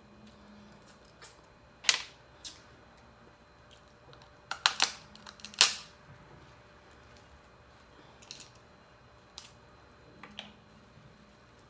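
Dungeness crab shell being cracked and snapped apart while eating: a series of sharp, irregular cracks, the loudest about two seconds in and a quick cluster around five to six seconds in.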